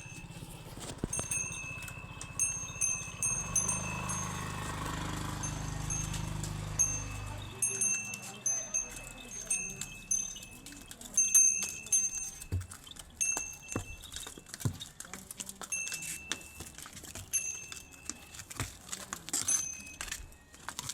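Small metal bells, of the kind worn by oxen, ringing again and again at irregular intervals as the animals move, each ring the same high tone. A low rumble runs under the first seven seconds or so.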